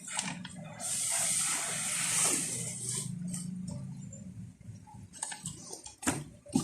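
Packaging rustling as a sneaker box is unpacked, a hissy crinkle for about two seconds, then a few light knocks near the end as the box and shoes are handled.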